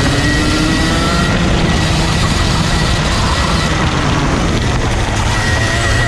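A 125cc two-stroke TAG kart engine running as the kart is driven through corners, with its pitch rising at times, under heavy wind rush on the onboard camera.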